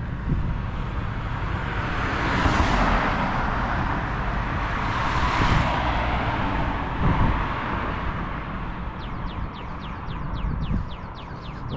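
Cars passing on the road, their tyre and engine noise swelling about two and five seconds in over a low rumble of wind on the microphone. About nine seconds in, a pedestrian crossing's audible signal starts up with a rapid series of short falling chirps, the sign that the walk light has turned green.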